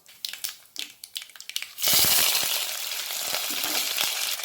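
Mustard seeds crackling and popping in hot coconut oil, then about two seconds in a sudden loud sizzle as chana dal (split Bengal gram) goes into the oil and fries steadily.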